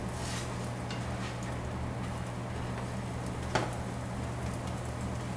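Pancake batter sizzling faintly on a hot pan over a steady low hum, with one light click about three and a half seconds in.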